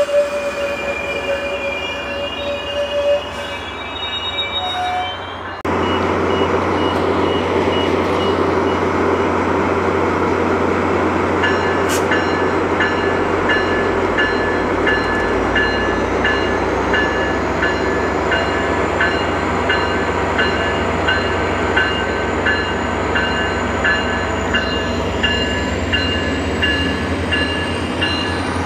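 Train passing close by with a steady rumble of wheels on rail, and high wheel squeal over the first few seconds. The rumble jumps up suddenly about six seconds in. From about halfway through, a ringing tone repeats about one and a half times a second.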